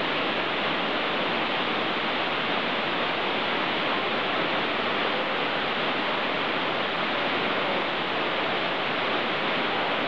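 Man-made indoor waterfall: one tall cascade and several smaller streams pour down a plant-covered artificial mountain onto the pool and paving below, making a steady, even rush of falling water.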